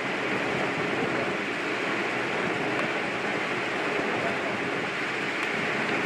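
A steady, even rushing noise of outdoor ambience, with no distinct events.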